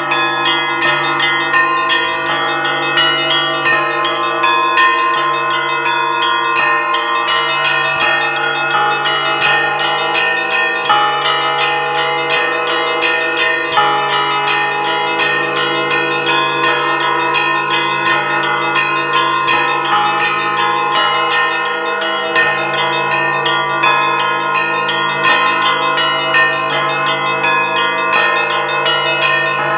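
Orthodox monastery church bells ringing in a continuous peal. Several bells are struck in a fast, dense rhythm over long-ringing tones.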